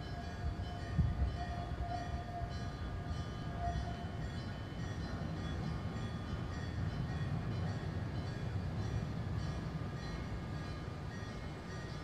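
Japanese railway level-crossing alarm ringing over and over in an even rhythm, with a steady low rumble underneath.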